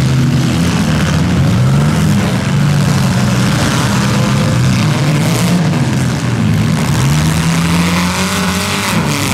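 Engines of several front-wheel-drive compact demolition derby cars revving hard together, their pitches rising and falling as they accelerate on dirt. A sharp crunch of a collision comes about halfway through.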